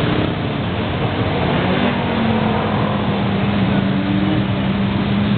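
Many motorcycle engines running together as a long column of bikes rides past, a loud steady din with single engine notes coming and going in it.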